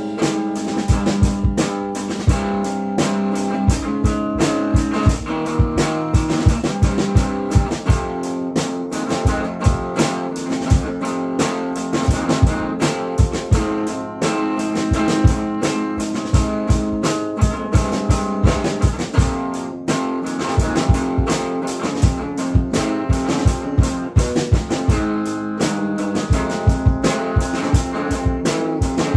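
A drum kit and an electric guitar playing together in an instrumental jam: steady drum strikes under held guitar chords and riffs.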